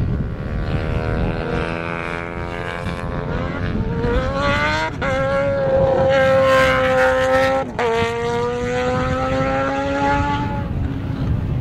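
A drag-racing vehicle accelerating hard down the strip, its engine note climbing steadily and dropping briefly at two gear shifts, about five and eight seconds in, then fading near the end.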